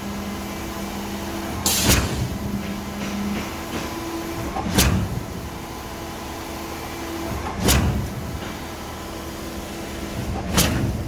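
KCP 63 m concrete pump truck pumping: a sharp clunk about every three seconds, four in all, as the pump changes stroke, over a steady machine hum.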